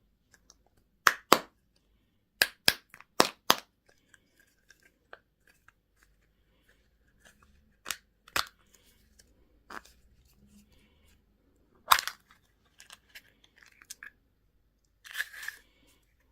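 Plastic candy and toy packaging being opened by hand: a series of sharp plastic clicks and snaps, a quick run of four in the first few seconds and the loudest a little after the middle, then a short crinkle of wrapper near the end.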